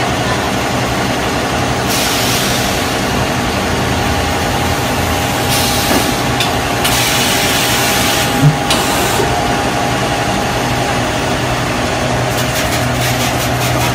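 Semi-automatic paper-pulp egg tray moulding machine running: a steady mechanical hum with intermittent hissing bursts, and a single short knock about eight and a half seconds in.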